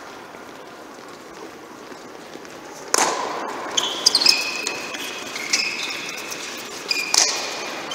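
Sneakers squeaking on the indoor court surface as players shuffle and change direction, in short high squeaks. Two loud sharp smacks cut through, about three seconds in and again near the end.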